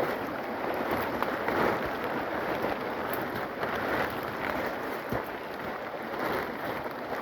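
Steady rain falling in a forest, with irregular rustles and scuffs throughout.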